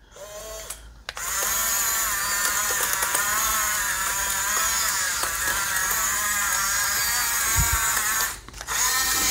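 Amewi 22518 RC bulldozer's small electric drive motors and gearboxes whining as it crawls on its tracks through sand, a buzz like a bumblebee swarm, its pitch wavering as the throttle changes. The whine cuts out briefly about eight seconds in, then starts again.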